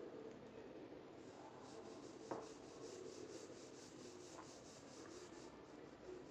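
Pencil faintly scratching on drawing paper in short, even sketching strokes, about four or five a second, starting about a second and a half in. A single light tap sounds just after two seconds.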